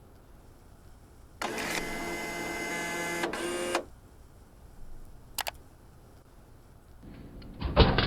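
Soda vending machine running its motor with a steady whir for about two seconds, a single click, then a loud clatter of knocks and thuds near the end as the soda drops into the delivery tray.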